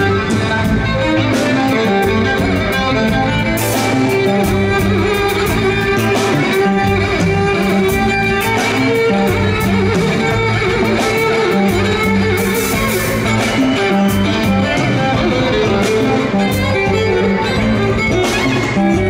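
Live band music at a rock concert: a violin solo played over an electric bass guitar, with the band's accompaniment.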